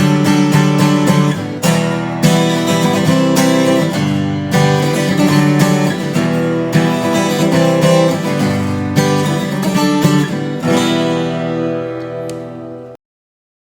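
Cowboy GWC 240 NAS acoustic guitar, fitted with a new bone nut, saddle, metal bridge pins and new strings, strummed with a pick through a run of chords. The last chord rings and fades, then the sound cuts off suddenly near the end.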